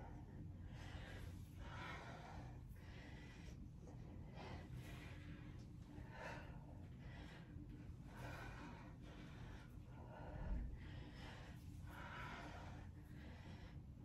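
A woman breathing hard through dumbbell presses, with a breath about once a second over a steady low room hum. One soft low thump about ten seconds in.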